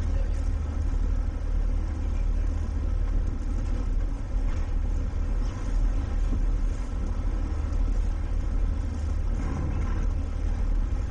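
Twin John Deere diesel engines of a 26-foot towboat running steadily, a low rumble.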